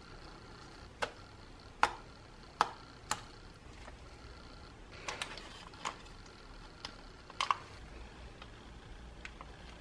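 A metal spoon spreading thick cream-cheese cheesecake filling in a parchment-lined pan, with about ten irregular sharp clicks and taps as the spoon knocks against the pan.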